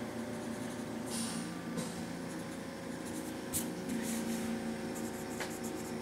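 Pencil scratching across sketch paper in several short strokes, over a steady low hum.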